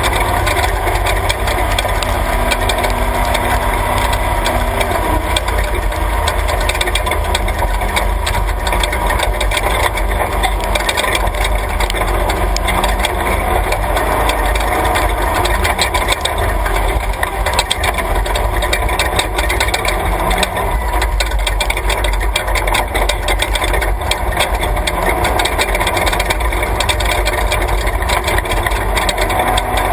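Off-road race vehicle driving hard over a rough dirt track: the engine runs steadily under power, with constant rattling and jolting from the body and suspension over the bumps.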